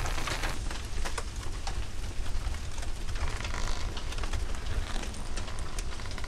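Convertible car on fire: the flames crackle and pop in scattered sharp snaps over a steady low rumble.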